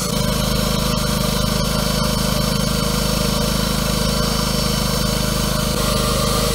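Small portable generator's petrol engine running steadily at an even speed.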